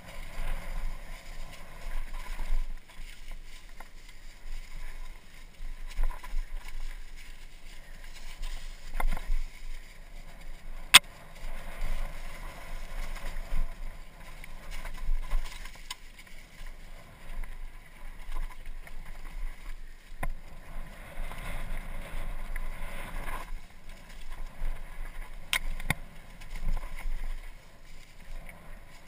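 Mountain bike descending a rough dirt trail: tyres and bike rattling over loose dirt and bumps, with wind rumbling on the helmet-camera microphone. A sharp click stands out about eleven seconds in, with a few fainter ones later.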